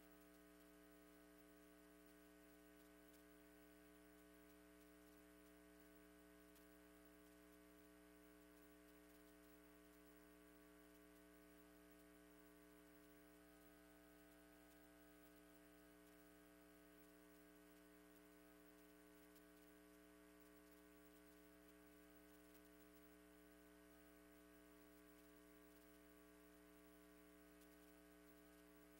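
Near silence: a faint, steady electrical hum that does not change.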